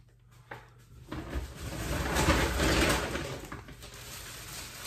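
Rustling and handling noise as groceries are dug out of a shopping bag, starting about a second in and fading over the next couple of seconds, after a small knock.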